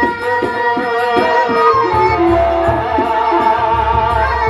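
Sasak gendang beleq gamelan music: low drum strokes and small cymbals striking in a steady rhythm, under a male vocalist singing long held lines that bend in pitch.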